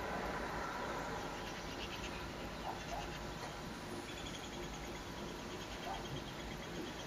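A bird's rapid, high-pitched trill in two runs, the second one longer, with a few short lower chirps over a steady low background rumble.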